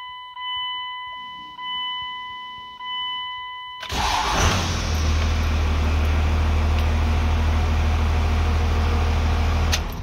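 Dashboard warning chime sounding every second or so with the key on, then the 1999 Dodge Ram's 5.9 L 24-valve Cummins inline-six diesel cranks briefly and starts about four seconds in, settling into a steady idle. After sitting with the key on, it starts promptly with no long crank.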